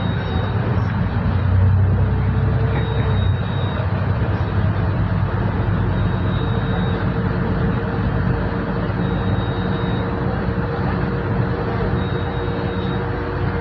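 Solaris Urbino 12 IV city bus under way, heard from inside the front of the cabin: a steady engine and drivetrain hum over road noise, with a faint high beep lasting about a second that repeats roughly every three seconds.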